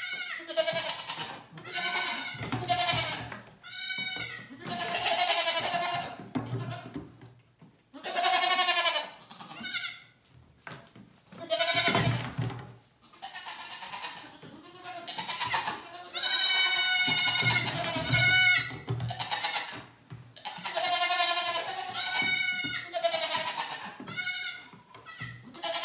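Goats bleating over and over, a string of high, quavering calls, some overlapping, with brief pauses between them.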